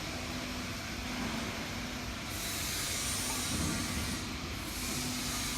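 Steady machinery hum with a hiss coming in about two seconds in, breaking off briefly and starting again near the end.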